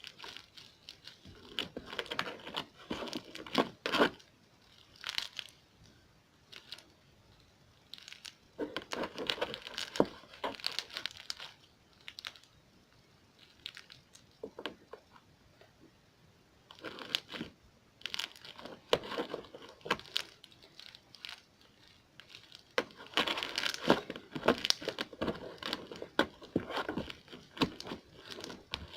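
Slime being squeezed, stretched and poked by hand, making crackling, clicking pops in several bursts of a few seconds each, with quiet pauses between.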